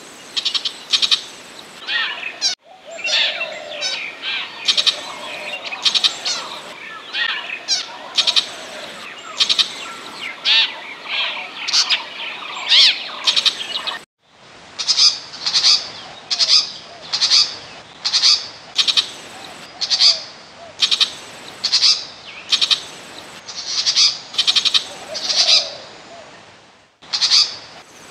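Burmese shrike calling on a spliced lure recording. First comes a varied run of harsh chattering and scratchy song notes. After an abrupt cut comes a regular series of harsh rasping calls, about one every three-quarters of a second.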